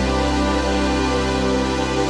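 Background music only: a steady, sustained chord of held tones.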